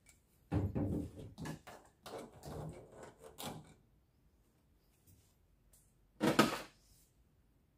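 Handling noises: a run of knocks and rustles for about three seconds as the washing machine's water inlet hose is handled, then one louder thump about six seconds in.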